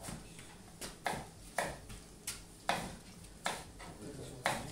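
Food being stirred in a pan: a utensil scraping and stirring in short strokes, about two a second.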